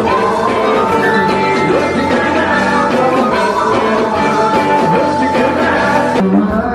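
A live band playing upbeat music with keyboard, drums and guitar, and singers at the microphones. The music changes abruptly about six seconds in, as at a cut to another part of the set.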